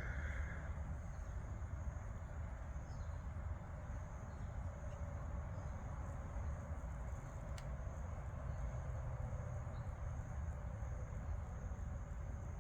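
Steady outdoor background noise: a continuous thin high-pitched hum or trill, like insects, over a low rumble, with a short faint sound right at the start.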